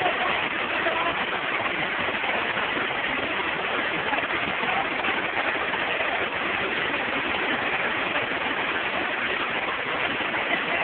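Steady rush of a waterfall: an even, unbroken wash of falling water.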